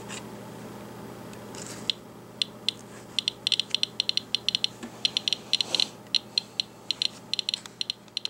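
Radiation Alert Inspector Geiger counter clicking at irregular, random intervals. The clicks start about two seconds in and come more often, several a second, as it counts radiation from a rain-out wipe sample.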